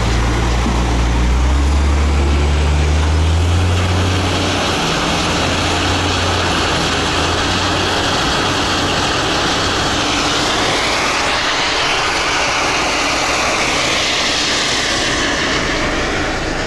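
Dump truck's diesel engine heard loud through the open cab window, revving up over the first few seconds as the truck pulls away, then running steadily. Mixed with the din of a wheel loader and quarry machinery; a whine rises and falls about ten seconds in.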